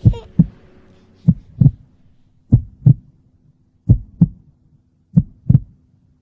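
Heartbeat: slow, even lub-dub double thumps, one beat about every 1.3 seconds, five beats in all.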